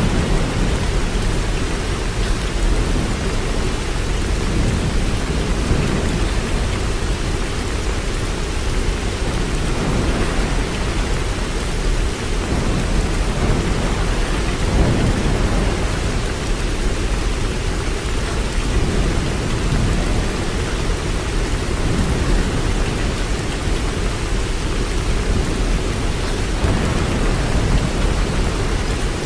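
Waterfall: a steady, deep rush of falling water that never changes.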